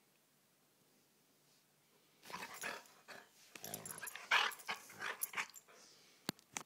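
A dog growling in play, a run of short rough growls starting about two seconds in, with a sharp click near the end.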